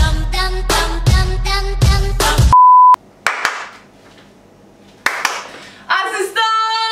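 Upbeat intro music with a steady beat, cut off about two and a half seconds in by a single loud, high beep lasting under half a second. A couple of soft noise bursts follow, and near the end a high voice starts singing held, wavering notes.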